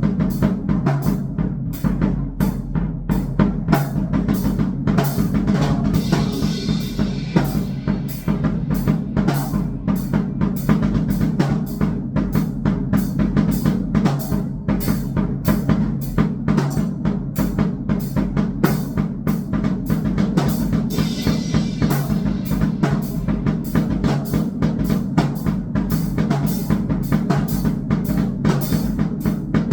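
Fast, continuous drumming on a drum kit with many strikes a second. A steady low drone sits underneath, and a washing cymbal comes in twice, about a quarter of the way in and again past two-thirds.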